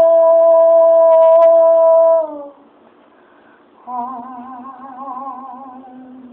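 A woman's voice singing unaccompanied. She holds one long, steady note that fades out about two seconds in, and after a short pause she holds a lower, softer note with vibrato until the end.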